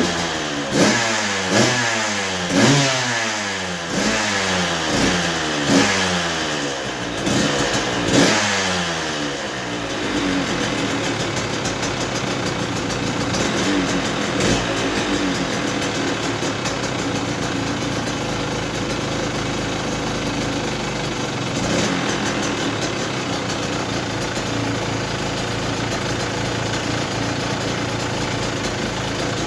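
KTM 125 SX two-stroke single-cylinder engine, freshly rebuilt top end, on its first run: about ten quick throttle blips, the revs rising and dropping each time, then settling to a steady idle about ten seconds in.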